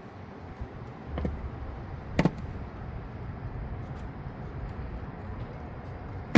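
A few sharp metallic clicks and knocks of hand tools and loose parts being handled under the hood, the loudest about two seconds in and a double one at the very end, over a low steady background hum.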